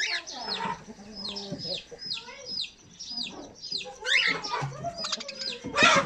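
Aviary cockatiels and budgerigars calling: a short, sharply falling chirp repeated two or three times a second over mixed chatter, with louder harsh squawks about four seconds in and near the end.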